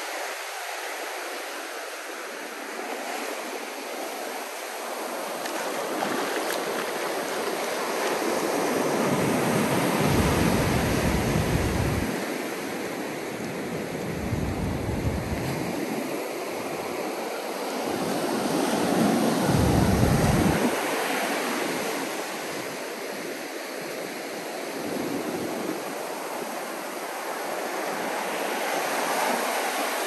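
Ocean surf breaking and washing up the beach in a continuous hiss. It swells louder twice, about ten and twenty seconds in, with a deep rumble at the loudest moments.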